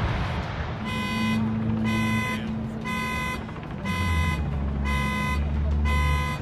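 An electronic alarm beeping steadily, about once a second, in six half-second beeps, over a low rumble that swells about two-thirds of the way through as the dust cloud from the imploded building spreads.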